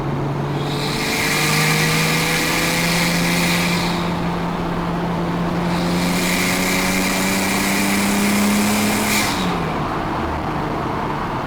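Nissan Skyline R34 GT-T's turbocharged straight-six running through a full exhaust system under steady load, its note climbing slowly, then dropping about nine seconds in. A hiss rises over the engine twice, for a few seconds each time.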